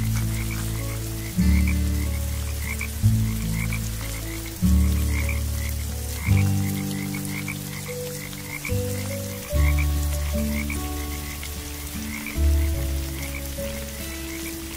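Frogs croaking in many quick short calls, over soft music of low held notes that change about every second and a half.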